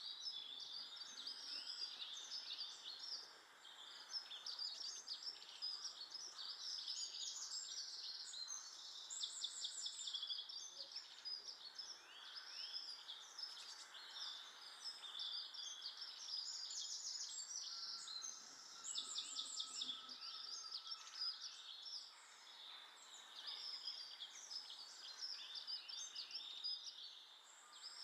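Many small songbirds chirping and twittering at once, their calls overlapping continuously, with a few quick trills of rapidly repeated notes.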